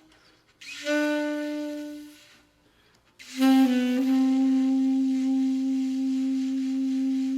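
Solo saxophone playing slow sustained notes: one note of about a second and a half, a pause, then a long held low note that dips slightly in pitch just after it begins and carries on.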